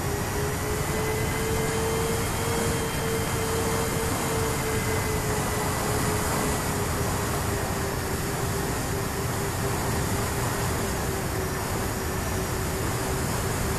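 Twin SunnySky 2212 brushless motors and propellers of a Sonicmodell Binary fixed-wing plane whining steadily in cruise, heard from an onboard camera under heavy wind rush. The whine rises slightly about two seconds in, then slowly drops in pitch.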